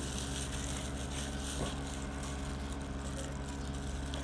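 Steady low mechanical hum of a running motor, with an even background hiss.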